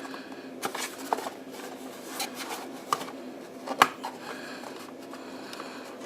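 Small cardboard and plastic packaging being handled and pried open by hand, with scattered light clicks and taps, the sharpest about four seconds in.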